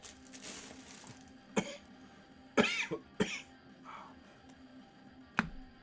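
A man coughing a few times in short separate fits, with some throat clearing. He is under the weather and hoarse.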